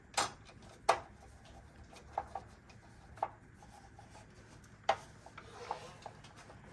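Scattered light clicks and knocks with some rubbing, as parts of a dust-collection attachment are handled on a miter saw, the loudest a sharp knock about five seconds in.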